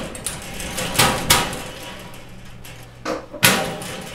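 Metal locker being worked at its latch and door: several sharp metallic clicks and clanks, two close together about a second in and the loudest about three and a half seconds in.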